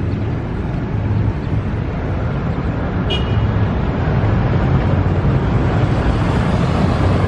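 Road traffic noise from passing cars and a motorcycle: a steady rumble that swells as vehicles go by in the second half.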